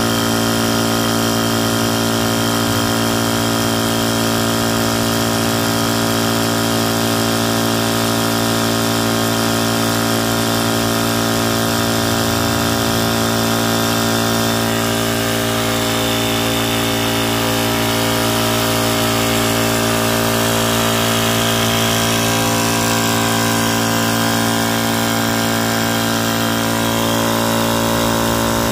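Tuxing high-pressure PCP air compressor running steadily, its motor-driven piston pump filling a PCP unit as the pressure builds toward 3,000 psi.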